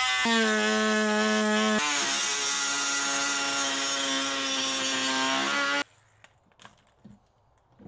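A small power tool cutting into the plastic under a car's rear bumper: a steady high whine with a rasping cut over it. It shifts pitch about two seconds in and cuts off abruptly about six seconds in.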